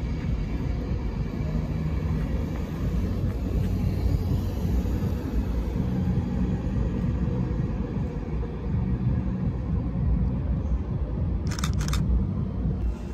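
An LNER InterCity 225 express train passing and running away along the line: a steady rumble of wheels on rails. Two short, sharp noises come near the end.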